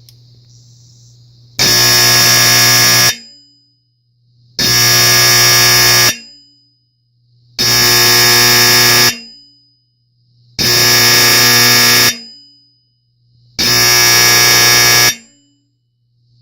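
Fire-Lite fire alarm horn-strobe on its first test, unrestored, sounding five loud buzzing blasts of about a second and a half each, one every three seconds. A faint steady hum runs underneath.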